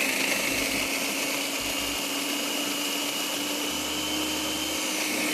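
Electric kitchen blender running steadily, grinding a thick red pesto, its motor pitch creeping up slightly.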